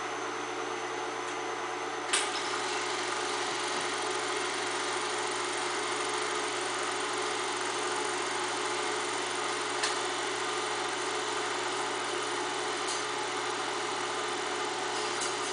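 8mm film projector running with a steady mechanical whir. A sharp click comes about two seconds in, after which the running sound is slightly louder, and a fainter click follows near ten seconds.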